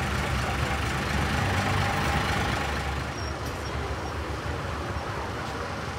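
Vintage bus engine idling at the kerb, a steady low rumble that eases a little about halfway through.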